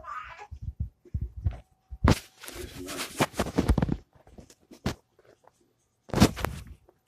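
Close rustling and soft thumps of a hand rubbing a tabby cat's fur against the bedding. They come in irregular bursts, densest between about two and four seconds in, with one loud burst near the end.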